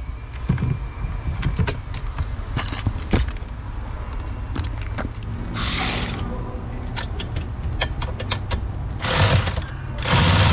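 Tools being handled under a pickup's dashboard: scattered metal clicks and clinks over a low steady hum. A cordless power tool runs in short bursts, once a little past halfway and twice near the end.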